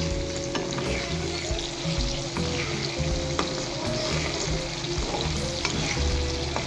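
Cut potato fries deep-frying in hot oil in a wok, sizzling steadily, with a spatula stirring them and clicking against the pan a few times.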